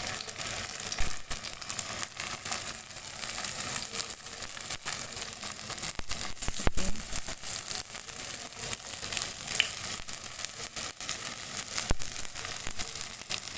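Sabudana vadas sizzling and crackling as they shallow-fry in a little hot oil in a kadhai, with a few low knocks now and then.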